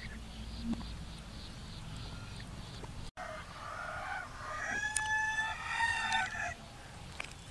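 A rooster crowing once in the background, one drawn-out call of about two seconds starting a little past the middle.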